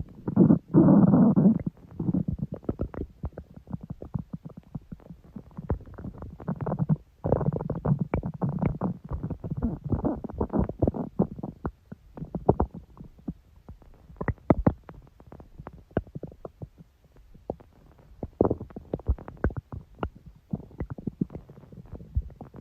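Human stomach growling and gurgling. There is a loud rumble about half a second in, another long gurgling stretch from about seven to eleven seconds, then scattered small pops and bubbling.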